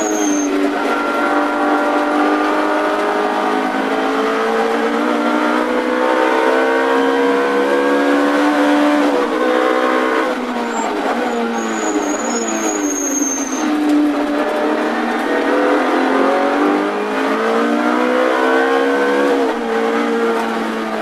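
Ferrari F430 GT3's V8 engine heard from inside the cockpit at racing speed. Its pitch climbs through the gears and drops back on downshifts, several times over.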